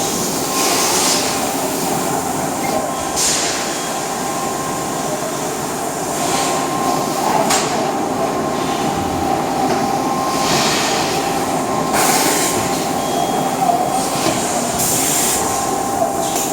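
Plastic bottle blow-moulding machine running: a loud, steady mechanical drone with a faint steady hum, broken by short bursts of hiss every one to three seconds.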